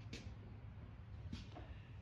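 Quiet room tone: a low steady hum with two faint taps about a second apart.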